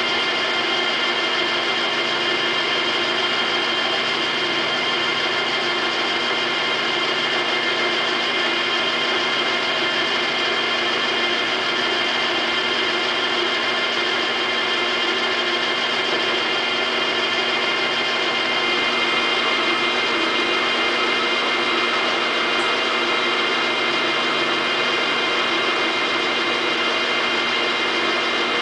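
Cincinnati Tray-Top engine lathe running steadily while threading: a constant hum from the motor and geared headstock with a high whine of many steady tones from the gear train.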